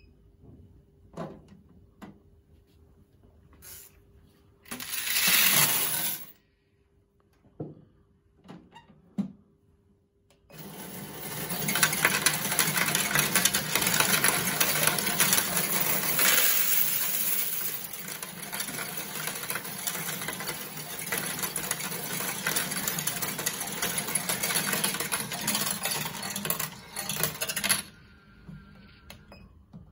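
A RIBAO CS-610S+PRO coin sorter counting and sorting a load of mixed coins. A short loud clatter near five seconds in, as the coins are tipped into the hopper, is followed at about ten seconds by the machine starting up. Its disc then feeds the coins through with a dense, continuous rattle and clinking for about seventeen seconds and stops suddenly near the end as the hopper runs empty.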